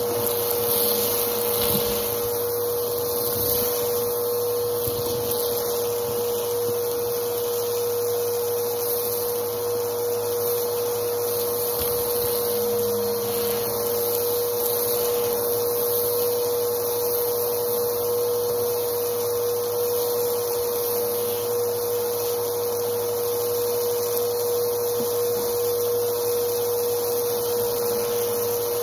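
Bagless upright vacuum cleaner running at a steady pitch, its hose and brush tool vacuuming carpet littered with lint and small beads.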